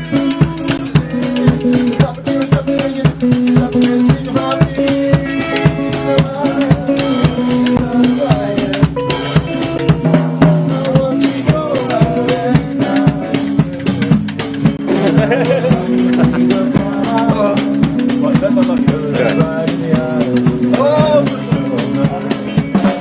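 Band music with a drum kit keeping a steady beat of snare and bass drum under sustained pitched instrument notes, with a wavering melody line in the later part.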